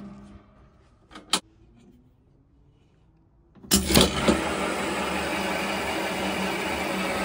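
Two sharp metallic clicks, then quiet; a few seconds in, a clatter of knocks starts a steady, loud mechanical running noise from the machinery.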